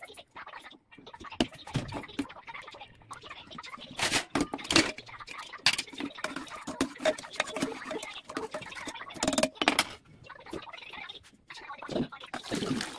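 Scattered clicks and knocks of steel kitchenware being handled on a gas stovetop: vessels, a lid and a ladle clinking against each other and the hob.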